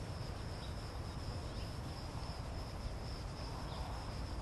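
Crickets trilling steadily, one high continuous note, over a low rumble.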